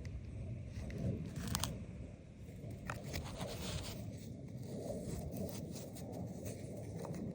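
Small stones clicking and scraping against one another in a scattered series of short sharp clicks, over a steady low rumble.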